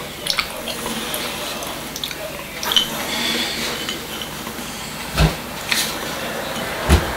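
Small pyramid-shaped board-game pieces clicking and clattering against a tabletop as they are picked up and moved, with a few scattered clicks and two duller knocks near the end.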